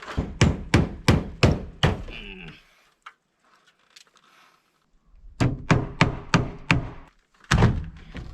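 Hammer blows on wood, driving nails: a run of about five strikes roughly three a second, a pause of about two seconds, then another run of strikes.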